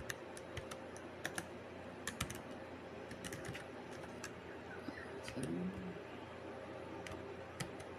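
Computer keyboard typing: scattered, irregular keystroke clicks, several in quick runs with pauses between.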